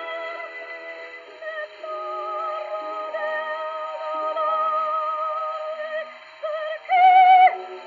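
Music: a slow melody with a strong wavering vibrato over held lower notes, with a short louder held note about seven seconds in.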